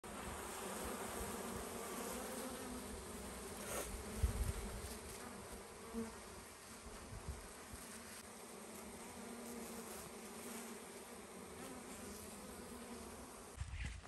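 A mass of honey bees on a wild comb held in bare hands, buzzing steadily, with a brief low thump about four seconds in.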